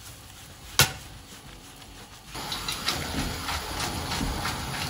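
Aluminium frying pan of tagliatelle and ragù being worked on a gas hob: one sharp knock about a second in. From about halfway there is a run of quick scraping, shuffling strokes as the pasta is tossed in the pan.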